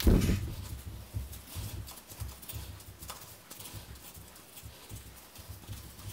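Hand tap in a T-handle wrench cutting threads into an aluminium cylinder head's stripped exhaust manifold bolt hole, opening it up for a Keysert insert. A thump right at the start, then irregular light clicks and knocks as the tap is turned.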